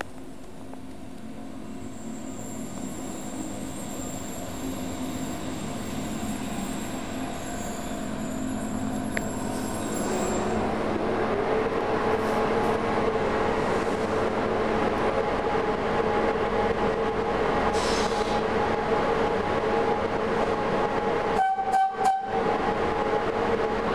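Electric locomotive pulling a train slowly into a station: its running noise and wheel rumble grow steadily louder over the first ten seconds, then hold loud with a steady whine. The sound briefly drops out near the end.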